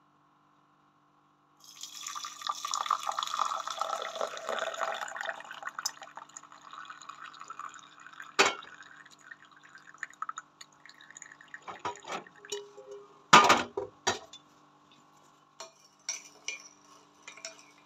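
Hot milk tea poured from a steel saucepan through a steel tea strainer into a ceramic mug. It splashes steadily for a few seconds, then thins to trickling and dripping. A sharp knock comes about halfway through and a loud clatter of kitchenware about two-thirds in, followed by light clinks.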